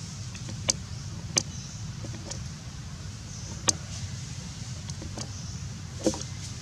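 Four short, sharp clicks or knocks over a steady low rumble.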